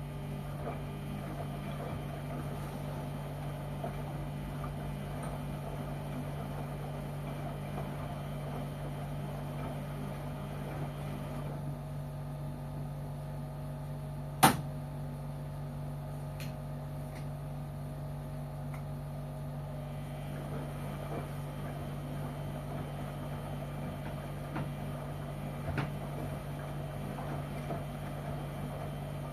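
LG washing machine running with a steady hum. A sharp click comes about halfway through, and a fainter one near the end.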